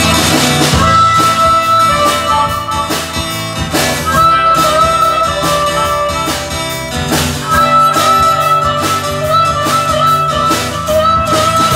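Live band playing: harmonica wailing long, bending notes into a microphone over acoustic guitar strumming, electric bass and a drum kit keeping a steady beat.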